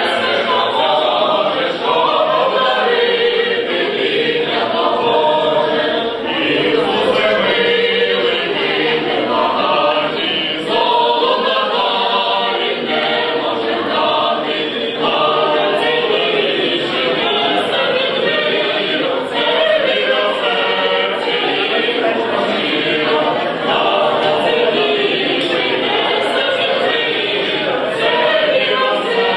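Mixed choir of men's and women's voices singing a Ukrainian Christmas carol unaccompanied, phrase after phrase with brief dips between them.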